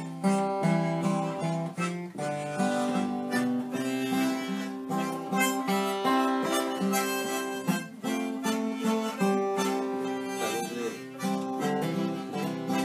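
Harmonica playing a melody over a strummed acoustic guitar.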